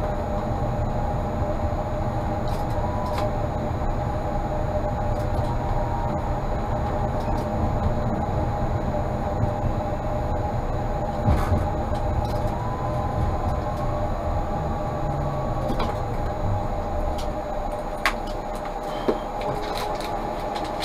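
Tatra T3P tram running along the track, heard from on board: a steady low rumble of wheels on rail with a steady electrical whine over it and a few sharp clicks and knocks. The rumble thins out near the end as the tram slows.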